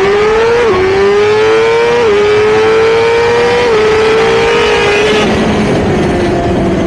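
Suzuki GSX-R1000R inline-four engine at full throttle on a quarter-mile drag pass, its pitch climbing through each gear with three quick upshifts, then easing down over the last couple of seconds, heard onboard with wind rush.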